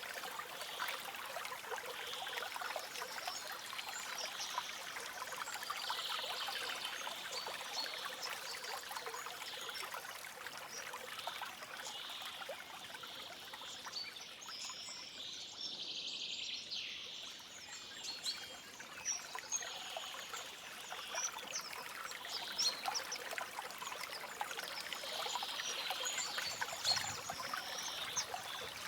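A shallow stream trickling and babbling steadily, with faint bird chirps here and there above the water.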